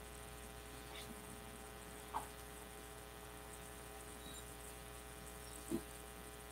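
Quiet room tone dominated by a steady electrical mains hum, with two faint brief sounds, one about two seconds in and one near the end.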